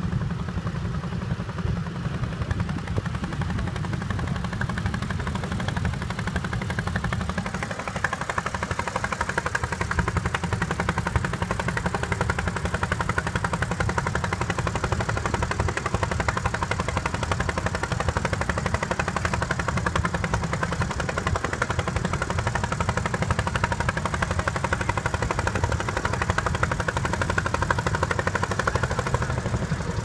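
Small walk-behind garden tractor's engine running steadily under load as it pulls a plough through the soil, a rapid, even chugging of firing pulses.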